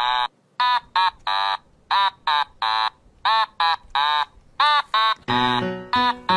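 Rapid run of short, high cat meows, each rising and falling in pitch, about two a second. Low sustained musical notes join them about five seconds in.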